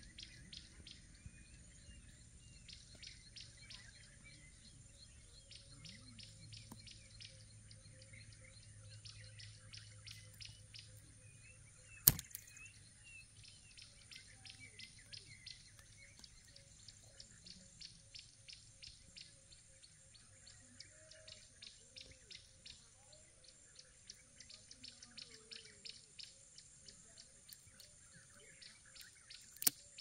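Birds chirping in a fast, steady run of high chirps repeating several times a second, with scattered calls between them. Two sharp clicks break in, one about twelve seconds in and one near the end.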